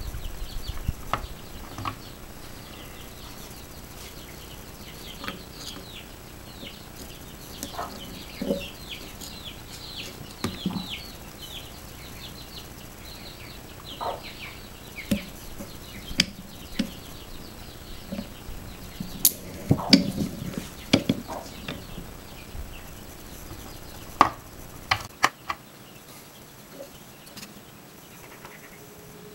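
Scattered sharp clicks and knocks of a steel shotgun-shell reloading press and a cartridge being handled and set into its holder, loudest in a cluster a little past the middle. Small birds chirp over and over in the background through the first half.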